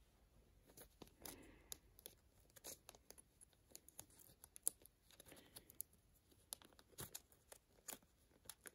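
Faint crinkling of a foil trading-card pack wrapper and baseball cards being handled, with scattered light clicks and soft rustles.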